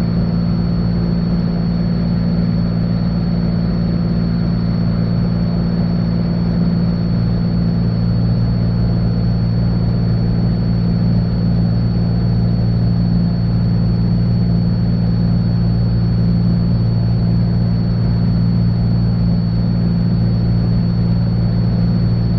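Cessna 182 Skylane's piston engine and propeller droning steadily in the cabin at climb power, climbing out after takeoff.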